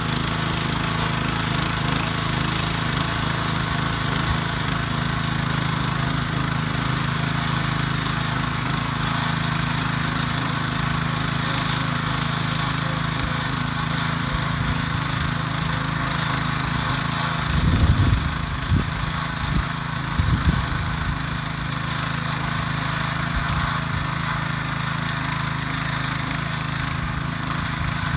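Ruris DAC 7000 ACC2 motor hoe running steadily under load as its rotary tines churn dry garden soil. A few brief, louder, deeper bursts come about two-thirds of the way in.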